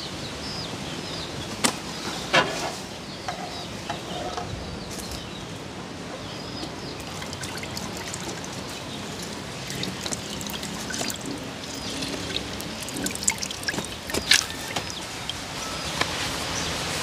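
Water pouring and trickling from an aluminium cooking pot while raw chicken pieces are washed, with a few sharp clinks.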